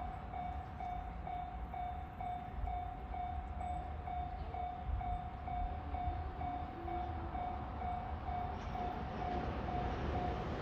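Railway level crossing warning alarm ringing, an even ding-ding of about two tones a second, over a low rumble.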